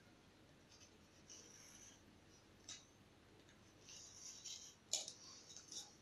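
Faint scratching of a pen tracing a circle around a small tin on a sheet, in short strokes, with a few light knocks near the end.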